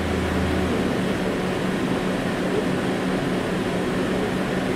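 KTM-31 (71-631) tram running along its track, heard from inside the driver's cab: a steady running noise with a steady hum, and a deeper low hum that drops out about a second in.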